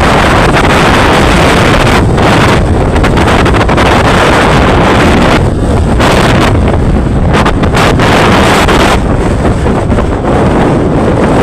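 Gale-force wind of 15 to 20 m/s buffeting the microphone: a loud, continuous rumbling roar that eases and swells with the gusts, over the noise of sea waves.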